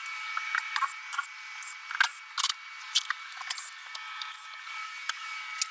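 Quick clicks, knocks and scrapes of hand demolition work, tearing out interior panels, carpet and trim, over a steady high hum. The sound is thin, with no bass.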